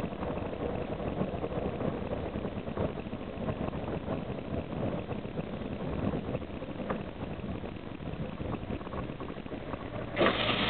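Interior running noise of a Karosa B741 articulated city bus under way: steady engine drone with road and body rattle, a few light clicks, turning suddenly louder with a steady low hum near the end as the engine is worked harder.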